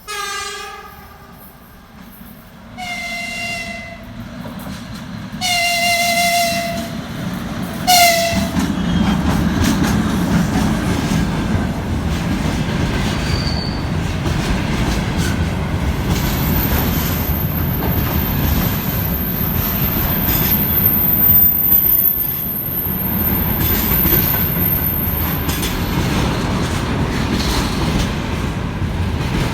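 2ES6 'Sinara' two-section electric locomotive sounding its horn in several short blasts, then rumbling past with its train. From about halfway in, the wheels give a thin, very high-pitched squeal on the rails for about ten seconds.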